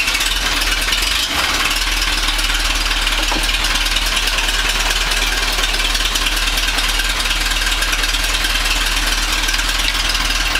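Tractor engine running steadily just after starting on its recharged battery.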